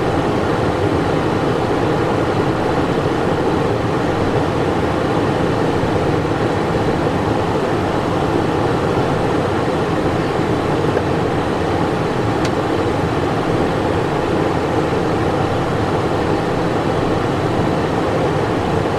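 Steady cockpit noise of a Cessna Citation Encore on final approach: a constant rush of airflow over the airframe with the hum of its twin turbofan engines, the aircraft configured with gear down and flaps at the landing setting.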